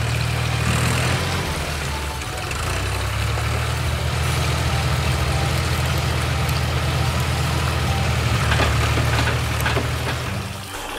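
Toy construction vehicle's engine sound, a steady low idling hum. It dips briefly about two seconds in and cuts off near the end.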